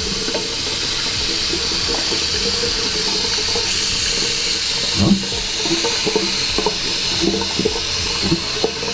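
Water from a hand-basin tap running steadily and splashing through a K&N reusable cotton air filter as the cleaner is rinsed out of it, with a few soft knocks and splashes, most marked about five seconds in.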